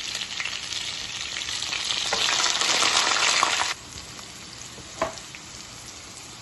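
Chopped onions and seasoning sizzling as they fry in hot oil in a pot. The sizzle swells louder and then drops suddenly to a quieter hiss a little past halfway. There is one short knock about five seconds in.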